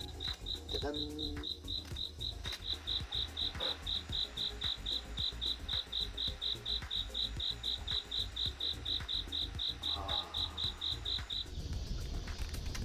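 An insect chirping in an even, high pitch, about four chirps a second, stopping near the end, over a low steady rumble.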